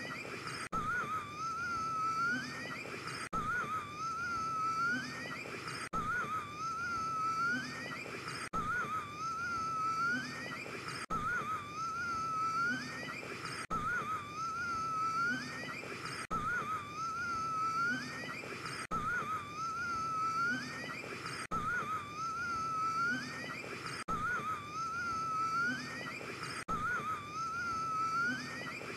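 A man wheezing as he gasps for air: a thin, wavering whistle-like wheeze that ends in a rising squeak. It is a short clip looped over and over, repeating about every two and a half seconds.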